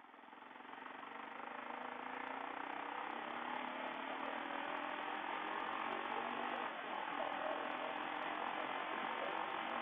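Motorcycle with a new aftermarket exhaust pulling away, its engine note rising over the first couple of seconds, then riding on under a steady rush of wind noise.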